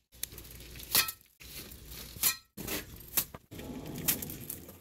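Steel pointed trowel scraping up and flinging spatter-dash cement mortar onto a concrete bond beam, with sharp scrape-and-slap strokes about once a second, four in all.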